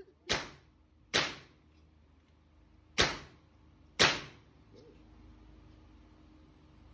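Four handgun shots: two about a second apart, a pause of nearly two seconds, then two more a second apart, each with a short echo.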